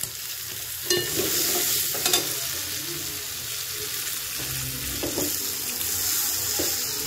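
Chopped onions sizzling steadily as they fry in hot oil in a cooking pot, with a few sharp clicks about one, two and five seconds in.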